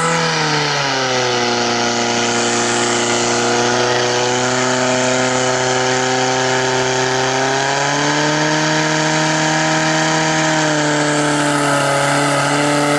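Portable fire pump's engine running hard at high revs, pumping water through the attack hoses; its steady note dips slightly about a second in and shifts again around eight seconds as the load changes.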